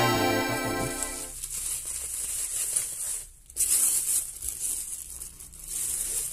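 Clear plastic bag and bubble wrap crinkling and rustling as hands pull them off a pair of canvas sneakers in a shoebox. A ringing musical chord fades out over the first second or so.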